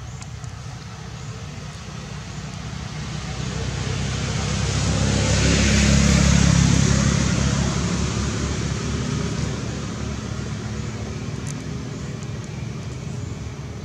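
A motor vehicle passing by: engine rumble and road noise build slowly, are loudest about six seconds in, then fade away.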